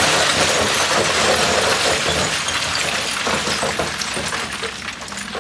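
Loose gravel and stones sliding and clattering as a load of gravel moves. A loud rushing rattle that slowly dies away, with a low engine running underneath.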